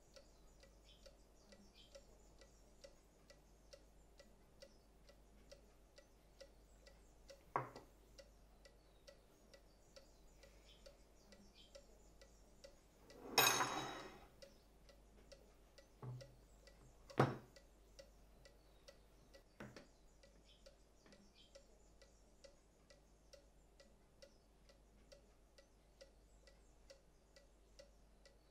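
Wooden cuckoo clock ticking steadily and faintly, about two ticks a second. A few louder knocks and clinks cut in partway through, the loudest a short scraping sound about halfway.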